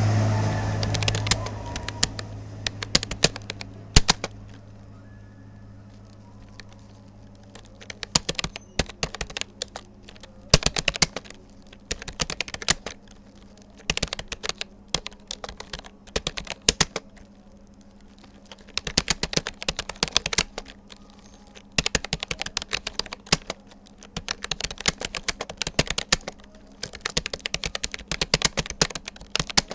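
Keys of a Rapoo computer keyboard clicking in quick runs of typing, broken by pauses of a second or two, over a steady low hum. A loud low rumble fades out over the first couple of seconds.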